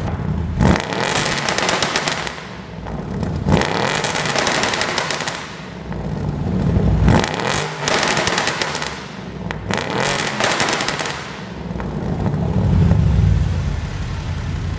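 2014 Audi S7's 4.0 TFSI twin-turbo V8 revved about four times, each blip followed by a rapid string of exhaust pops and crackles on the overrun from a pop-and-bang tune. A last, lower rev comes near the end.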